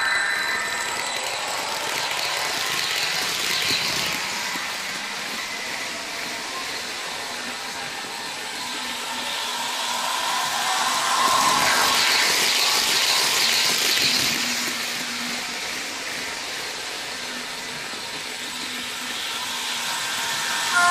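H0-scale Liliput Stadler KISS model train running on its track, a steady rushing mechanical noise from its wheels and motor mixed with the running sound played by its ESU sound decoder. It grows louder for a few seconds around the middle.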